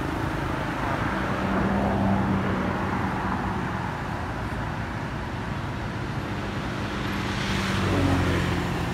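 Motor vehicle traffic: engines running and passing, the hum swelling about two seconds in and again near the end.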